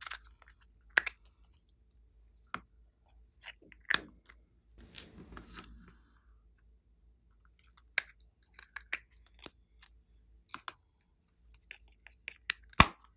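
Small flower-shaped plastic cases being handled: about a dozen scattered sharp plastic clicks and taps, with a short rustle about five seconds in and the loudest snap near the end.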